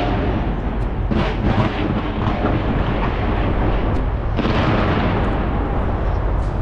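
Barrage of fireworks fired from the upper floors of a skyscraper, a continuous rumble of booms and crackle, swelling about a second in and again a little after four seconds.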